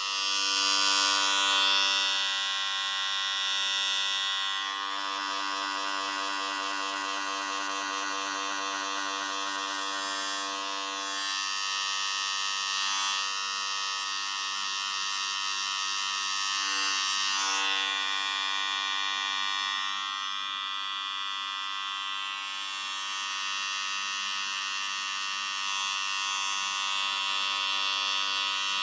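Electric hair clippers buzzing steadily through a haircut, the tone and loudness shifting every few seconds as they move over the head.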